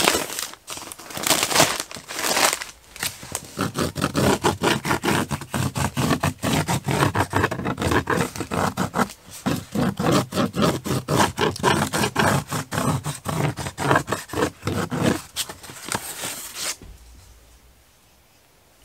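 Scraping and crinkling as a fiberglass insulation batt and a cardboard template are handled against a paper-faced insulated wall, with rapid scratchy strokes throughout. It stops near the end.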